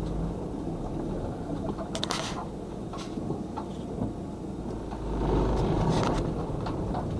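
Car engine and tyre noise heard from inside the cabin while driving slowly, a steady low rumble that swells for a moment about five seconds in, with a brief sharper noise about two seconds in.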